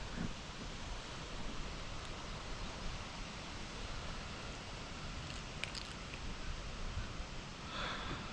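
Steady wind noise on the microphone, a low rumble with an even hiss, with faint rustling.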